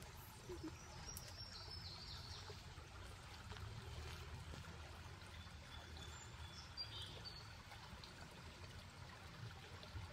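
Faint steady outdoor background: a low rumble and hiss like moving water or wind, with a few faint high chirps.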